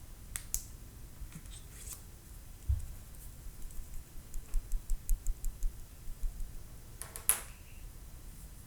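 Samsung Galaxy Note 9 phone being shaken by hand, giving light clicking rattles: scattered clicks, a quick run of about six ticks a second in the middle, and a louder clatter near the end. The owner traces the rattle to the camera and the S Pen, and is unsure whether it is normal or a fault in the unit.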